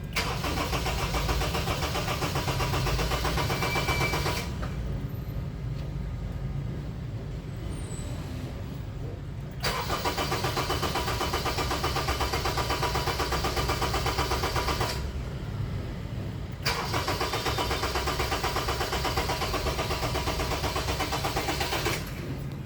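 Honda BR-V's 1.5-litre four-cylinder petrol engine running steadily just after a tune-up and oil change. Its upper tones turn brighter and duller in turns every few seconds.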